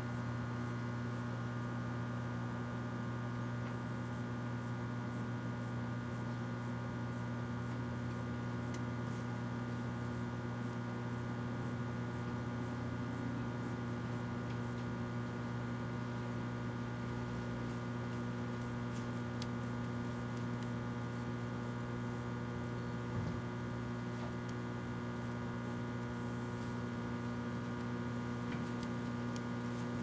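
1984 Kenmore microwave oven running, a steady electrical hum while it heats a Resolve stain stick inside.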